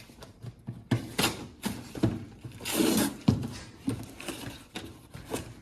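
A package being opened by hand: irregular rustling, scraping and knocks of the packaging being handled and pulled apart, with a longer, louder rustle about three seconds in.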